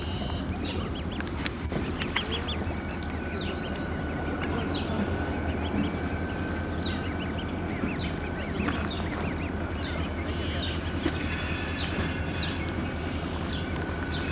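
Canada goose goslings peeping: many short, high chirps scattered throughout, over a steady low background rumble. A single sharp click about a second and a half in.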